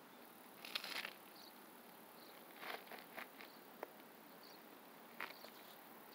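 Faint outdoor ambience: a low steady hiss with a few short, scattered chirps and a single tick.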